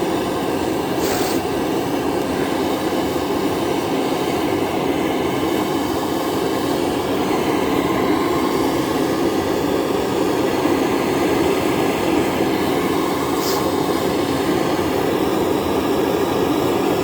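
Propane torch burning with a steady roar as it heats the cold engine oil pan of an old Lincoln SA-200 welder to help it start in freezing weather.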